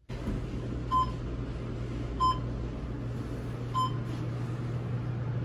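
Elevator car humming steadily as it moves, with three short electronic beeps about a second and a half apart, like the signal an elevator gives as it passes each floor.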